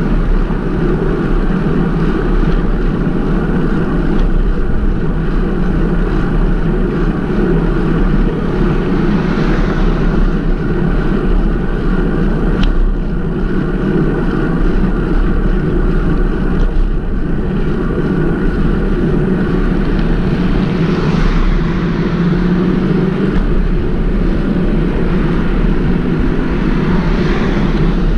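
Steady low wind rumble on the microphone of a cyclist riding along a road.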